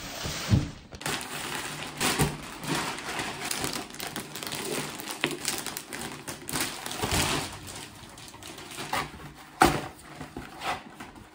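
Plastic packaging crinkling and cardboard parcels being handled as deliveries are unpacked, with a couple of sharp knocks, one about half a second in and one near the end.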